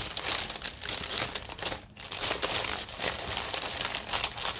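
Plastic packaging of craft kits crinkling and rustling as it is handled, with a short pause about two seconds in.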